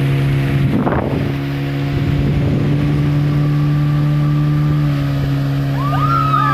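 Outboard motor of a small speedboat running at a steady speed, a low even drone, with water and wind rushing past. Near the end the passengers start cheering with wavering, rising voices.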